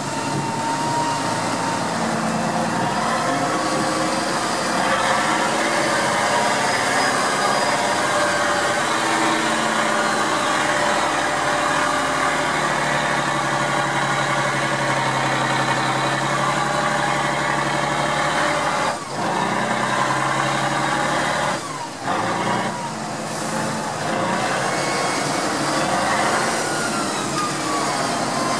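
Tatra 813's air-cooled V12 diesel engine running under load as the truck drives over gravel, its pitch rising and falling, with a thin whine above it that glides up and down. The engine sound dips briefly twice, about two-thirds of the way through.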